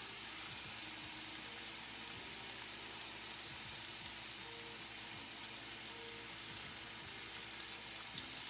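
Diced butternut squash and leeks frying in hot oil in a stainless steel skillet: a steady sizzle.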